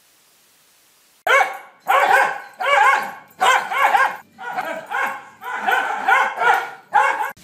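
A dog barking over and over in a high, wavering voice: about a dozen barks in quick succession, starting about a second in.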